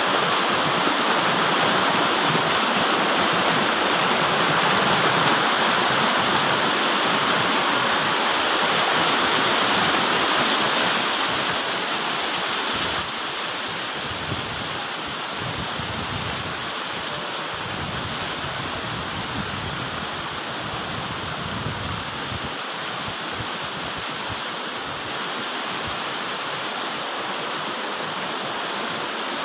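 Waterfall pouring into a pool: a steady, even rush of falling water that drops a little in level about halfway through.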